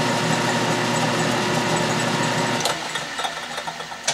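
12-inch Atlas/Craftsman metal lathe running with a steady hum. About two-thirds of the way in the hum drops away as the lathe stops, leaving a few light clicks and one sharp tick near the end.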